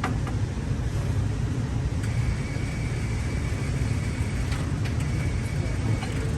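Steady low rumble with a few faint clicks and a thin high tone coming in about two seconds in.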